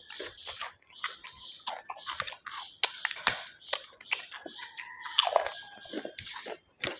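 Close-miked chewing of food, with crunchy bites and many sharp wet mouth clicks in an irregular run.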